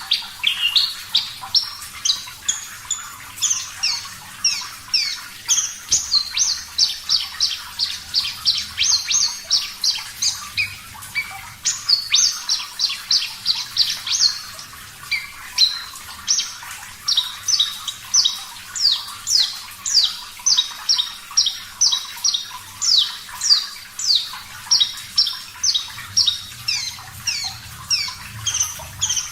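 Javan bush lark (branjangan, parva race) singing a long unbroken run of quick, sharp chirps, two or three a second. Behind the song runs a steady hiss of flowing water.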